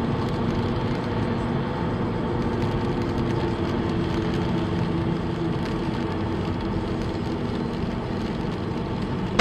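Steady road noise of a car at highway speed on a wet road, heard inside the cabin: tyre hiss with a low engine and tyre drone that eases off partway through.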